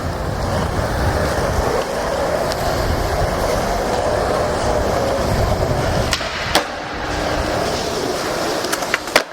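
Skateboard wheels rolling over pavement with a steady rumble, then a few sharp clacks of the board in the last few seconds.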